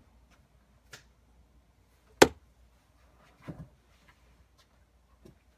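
A few scattered sharp clicks and knocks, with one loud sharp click a little over two seconds in and a duller knock about a second later.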